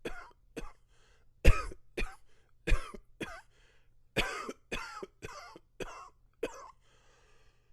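A man coughing repeatedly in short bursts, about eleven coughs in three quick runs, brought on by flared-up allergies.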